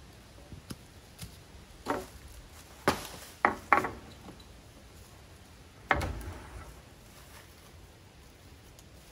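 Wooden truss boards knocking against a wooden deck frame as they are lifted into place: about five sharp knocks in the first six seconds, two of them close together around the middle.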